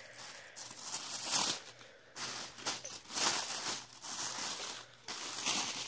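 Tissue paper rustling and crinkling in a string of short bursts as it is handled and unfolded by hand.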